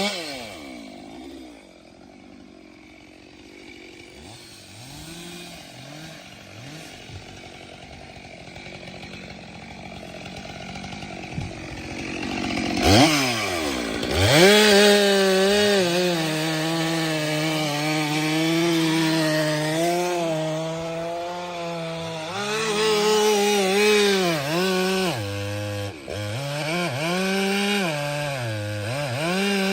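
Stihl MS 462 C-M two-stroke chainsaw dropping from full throttle to a low run at the start, then, about halfway through, revved back up and cutting firewood, the engine note sagging and recovering several times as the chain bites into the wood.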